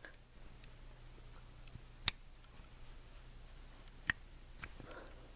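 Light clicks and taps from the metal revolver cylinder and a cleaning rod with a wet patch being worked through its chambers, two sharper clicks about two seconds apart, over a faint steady low hum.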